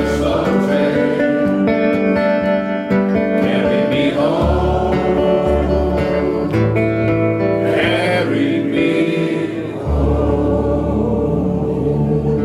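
Acoustic guitar playing a blues groove while an audience sings the chorus together in a singalong.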